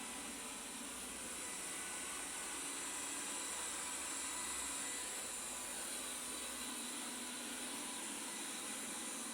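Xiaomi S10 robot vacuum running, a steady high-pitched whir of its suction fan.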